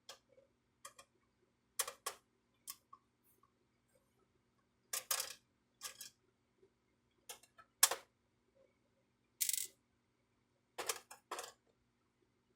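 Hard plastic printer parts and tools being handled: a dozen or so short, irregular clicks and light clatters, some in quick pairs, the sharpest about eight seconds in.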